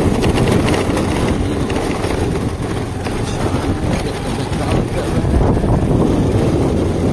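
Wind buffeting the microphone of a motor scooter being ridden along a dirt track, with the scooter's engine and tyres running steadily underneath.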